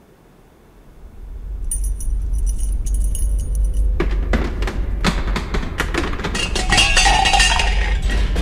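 Earthquake sound effect: a deep rumble builds from about a second in, with glassware tinkling and rattling on top. Then a growing clatter of shaking objects comes in, loudest near the end.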